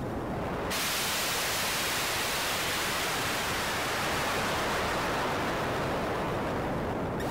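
A loud wash of white noise in an electronic music track, switching on abruptly under a second in with the beat gone, then cutting off sharply near the end as the beat comes back.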